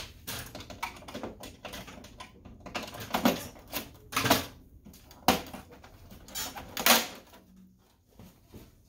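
Plastic side cover of an HP Color LaserJet M452 laser printer being worked off by hand, its retaining clips snapping loose. It is a series of sharp plastic clicks and knocks about a second apart, the loudest near the end as the cover comes free.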